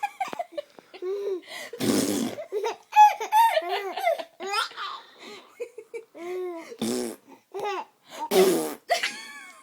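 Baby laughing and giggling in repeated short bursts, with two loud spluttering fart noises, about two seconds in and near the end, that set off the laughter.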